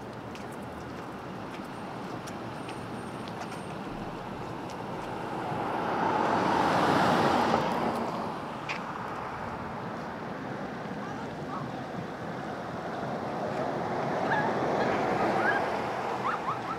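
Small Lake Ontario waves washing onto the shore, the wash swelling and fading twice.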